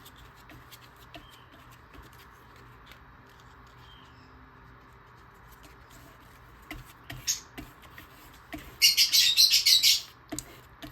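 Pet lovebird calling: a short shrill call, then about two seconds later a loud burst of harsh, rapid chirps lasting about a second near the end. Faint light ticks of hand work on paper before that.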